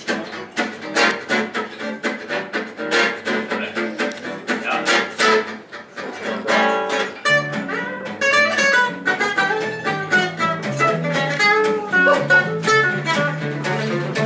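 Live gypsy jazz trio of two acoustic guitars and bass playing a fast tune: the rhythm guitar strums a steady chop of about four chords a second while the lead guitar plays quick single-note runs. From about seven seconds in, a walking bass line comes up clearly under the lead melody.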